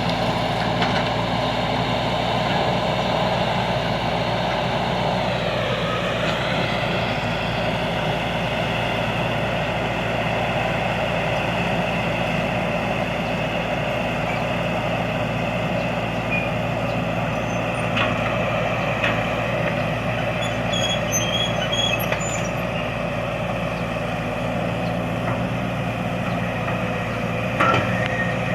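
Excavator's diesel engine running steadily under load, with its pitch dipping briefly and recovering about five seconds in. A few sharp knocks near the end.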